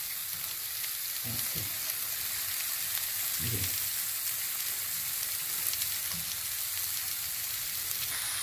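Butter and sliced onions sizzling on a hot sizzler plate: a steady frying hiss with faint crackles.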